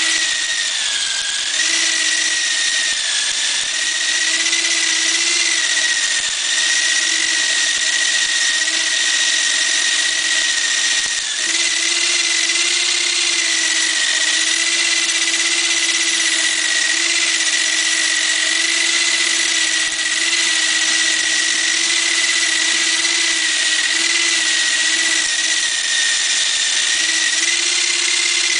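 Electric drill spinning a homemade chicken plucker, a PVC cap fitted with rubber bungee-cord fingers, running steadily as a chicken is held against the fingers. Its whine dips briefly in pitch a couple of times.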